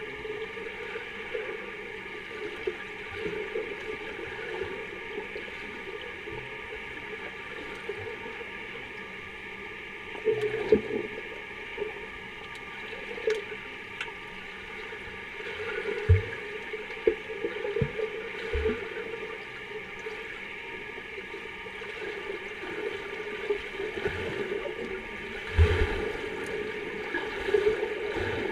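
Underwater sound of a swimming pool heard from the bottom: a steady hum and hiss of the water, broken by several muffled low thumps from water disturbed above. Near the end it grows busier with bubbling as swimmers move through the water overhead.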